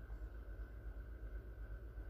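Faint steady low hum with a faint high steady tone: background room noise, with no distinct event.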